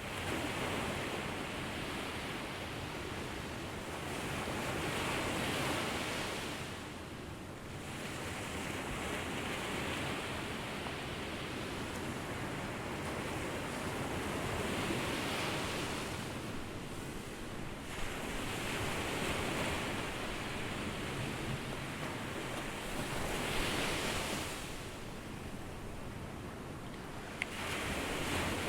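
Ocean waves breaking and washing up a beach, a steady hiss of surf that swells and eases every few seconds.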